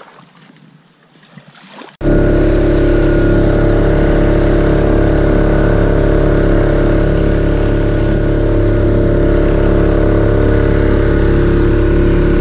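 Faint high insect buzzing, cut off about two seconds in by the loud, steady running of a Mokai jet-propelled kayak's engine under way at speed, with water rushing along the hull.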